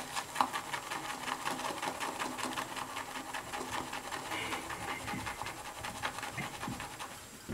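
A wet shaving brush whipping shaving soap into lather in a bowl, with quick, even, scratchy strokes in a steady rhythm.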